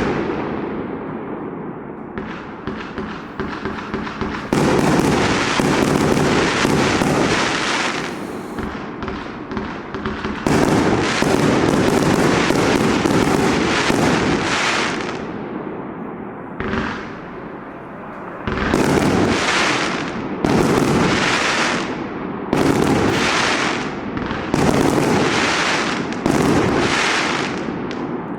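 Burning Sky 120-shot compound firework barrage firing: volleys of rapid shots and crackling bursts in repeated surges, coming about every two seconds towards the end, then dying away as the cake finishes.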